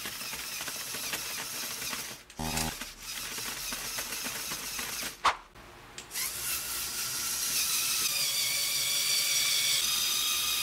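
Small electric motors of a Lego Technic vehicle whining through plastic gear trains as it drives. About two seconds in there is a short run of low tones, and a sharp click comes about five seconds in. From about six seconds the whine is louder and steadier, and it settles slightly lower in pitch around eight seconds in as the vehicle climbs the ramp.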